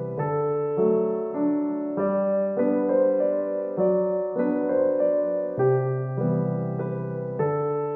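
Background piano music: chords and notes struck in a steady, gentle rhythm.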